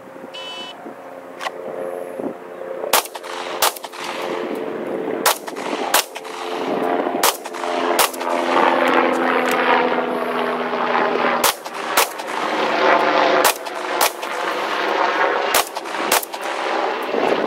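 A shot-timer beep, then about a dozen pistol shots, mostly in pairs of a second or less, with a longer pause about halfway for a reload. A steady engine drone runs underneath.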